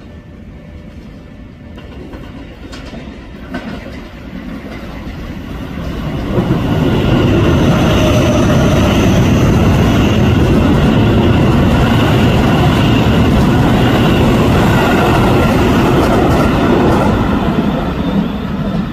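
Electric train on the Keio Sagamihara Line approaching and running past, growing loud about six seconds in, with rail clatter and a high whine, then fading near the end.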